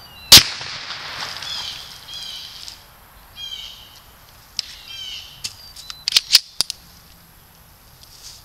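A single suppressed 9mm pistol shot from a Glock 19 with a Liberty Infinity suppressor, a sharp report about a third of a second in, fired with handloaded ammunition that the shooter suspects isn't subsonic. Birds chirp afterwards, and a few sharp clicks come about six seconds in.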